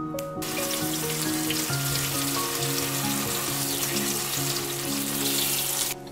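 Tap water running onto leafy greens as they are rinsed by hand in a colander. The water starts about half a second in and cuts off abruptly just before the end. Soft background music plays throughout.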